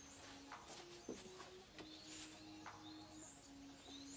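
Faint birdsong: short, high chirps repeating every second or so, with a couple of soft clicks from handling.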